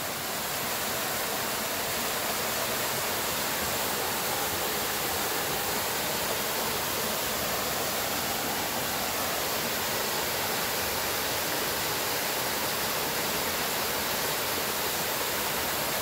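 Small waterfall pouring over rock ledges into a shallow pool: a steady rush of splashing water.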